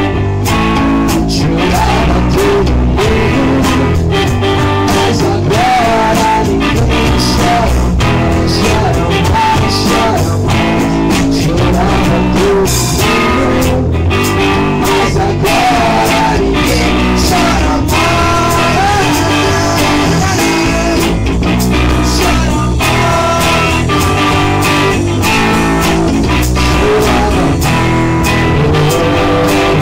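Rock band jamming: guitar with a gliding, bending lead line over a steady drum beat.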